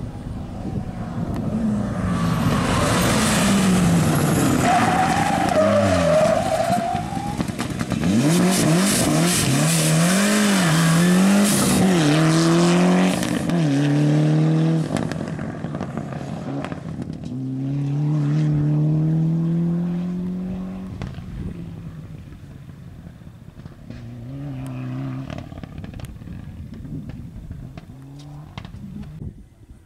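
Rally car engine run hard, its pitch climbing and dropping again and again as it shifts gear and brakes for bends. It is loudest in the first half, climbs once more midway, then fades as the car moves away.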